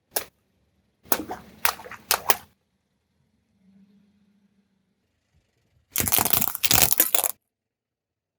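Brittle objects cracking and crunching as a car tyre crushes them: one sharp crack at the start, a quick cluster of cracks about a second in, then a longer run of dense crunching near the end.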